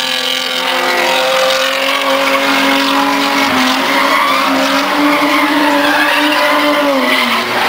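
Drift cars sliding sideways through the turn: engine held at high revs, its pitch wavering with the throttle and dipping near the end, over steady tyre squeal.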